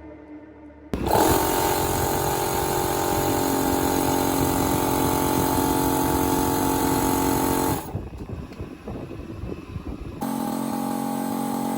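Electric air compressor running: it comes in abruptly about a second in with a loud, steady hum and breaks off after about seven seconds. A quieter, uneven noise follows, then the steady hum returns at a lower level near the end.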